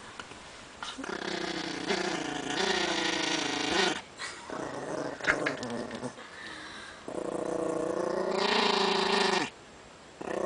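A nervous dog growling in two long, wavering stretches, the first about a second in and the second about seven seconds in, with shorter growls and grunts between them.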